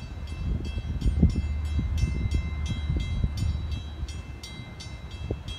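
Warning bell of a raised bascule drawbridge ringing rapidly, about four or five strikes a second, over a steady low rumble.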